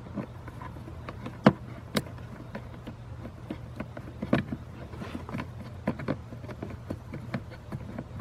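Scattered small clicks and taps of fingers starting a Phillips screw by hand into the plastic blower housing to hold a blower motor resistor, with sharper clicks about one and a half and two seconds in, over a faint steady low hum.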